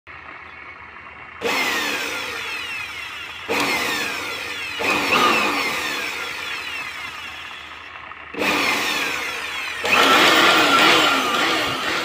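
Electric hand air blower run in about five short bursts. Each burst starts suddenly and then winds down with a falling whine.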